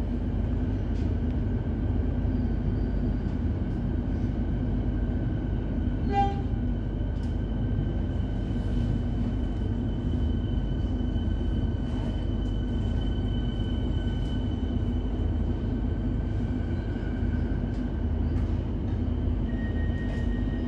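Melbourne suburban electric train running along the line, heard from on board: a steady rumble of wheels on track with steady high whining tones over it. A brief higher-pitched sound cuts through about six seconds in.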